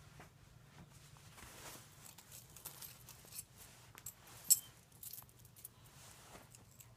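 Small pocket items being handled, with scattered light clicks and rattles and one sharp click about four and a half seconds in.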